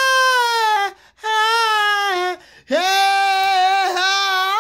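A man's voice wailing in a high falsetto, in three long held notes, each sagging down in pitch at its end.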